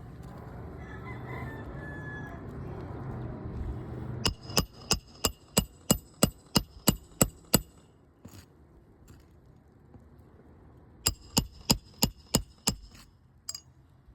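Roofing hammer driving roofing nails into a three-tab asphalt shingle: a run of about a dozen quick, ringing strikes, then after a pause a second run of about seven. A rooster crows in the first few seconds.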